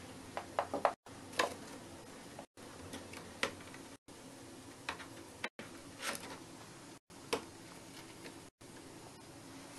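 Hamster hauling a bone-shaped chew across a wooden floor and into a cardboard box: light taps and clicks of the chew and paws knocking floor and cardboard, a quick run of four about half a second in, then single ones every second or so, over a steady hiss.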